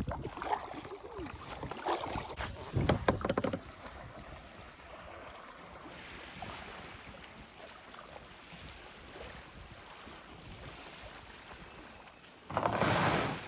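A kayak and paddle knocking and scraping as someone climbs out of the boat onto a bank, with a cluster of clatters in the first few seconds. Near the end comes a short rush of noise about a second long.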